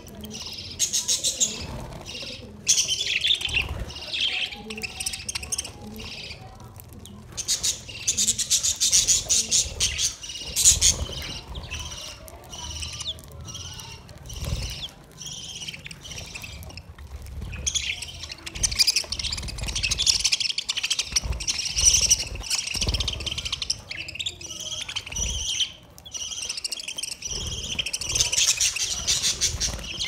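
A flock of budgerigars chattering and chirping together, many birds at once in a dense, unbroken stream of calls.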